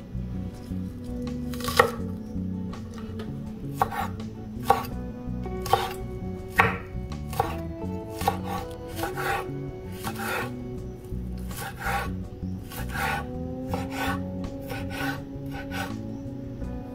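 Santoku-style kitchen knife slicing green onion tops on a bamboo cutting board: uneven knife strokes against the wood, roughly one or two a second, the loudest about two seconds in.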